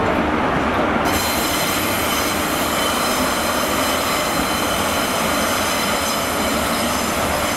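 GWR InterCity 125 high-speed train, its Mark 3 coaches and Class 43 power car 43094, rolling past with a steady rumble. A high-pitched metallic squeal of several steady tones joins in about a second in and holds.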